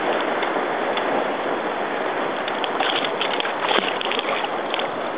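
Steady rush of sea water and wind close to the microphone on a boat among the waves, with a few faint splashes about three to four seconds in.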